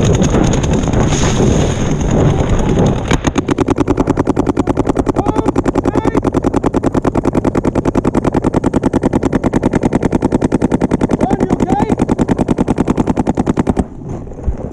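Paintball marker firing a long, fast, even string of shots, roughly ten a second. It starts about three seconds in and stops abruptly just before the end.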